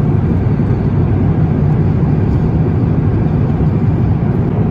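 Steady low rumble of cabin noise inside an Airbus A350-1000 in flight: engine and airflow noise with no change in level.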